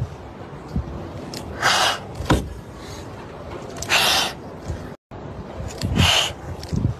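Kittens hissing: three short, breathy hisses about two seconds apart, with a sharp click between the first two.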